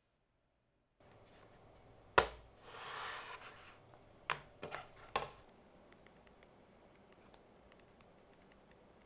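An LG gram 360 convertible laptop being folded over into tablet mode and laid on a desk: a sharp knock about two seconds in, a brief rubbing sound, then three lighter knocks. Faint light ticks of a stylus on the screen follow.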